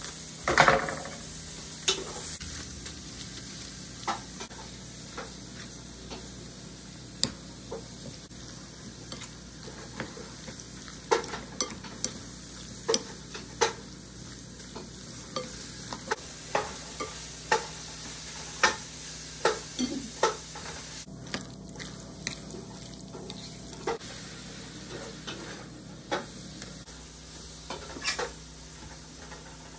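A metal spoon stirring seasoned shrimp in a glass mixing bowl: irregular clinks and scrapes against the glass, about one or two a second, over a steady low hiss, with a louder clatter about half a second in.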